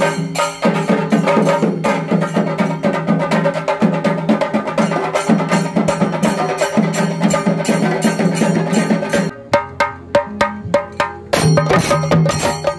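Rhythmic percussion music: fast, even strikes over a steady low tone. The beat thins to a few sparse hits a little after nine seconds in, then comes back in full about two seconds later.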